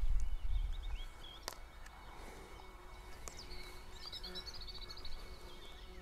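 Outdoor field ambience with small birds chirping faintly in the background, including a quick twittering run about four seconds in. A low rumble marks the first second.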